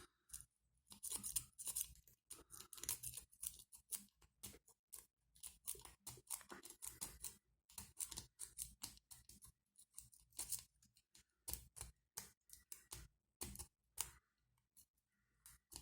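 A lock-pick rake scrubbing in and out of a small Goldcity padlock's keyway: a faint, fast, irregular run of metallic clicks and scrapes as the pins are raked. The lock does not open.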